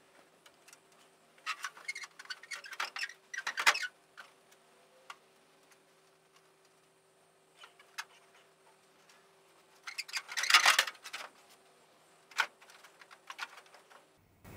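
Scattered light clicks, taps and rustles of hands working the steel rear fender of a 1941 Ford pickup and its mounting bolts, in bunches about two to four seconds in and again around ten seconds, the loudest just after ten seconds.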